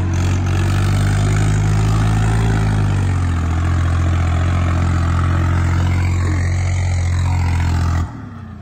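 Swaraj 744 XT tractor's three-cylinder diesel engine running hard as the tractor drives up through loose sand. It makes a loud, steady low drone that dips slightly in pitch about three seconds in, and the sound cuts off abruptly near the end.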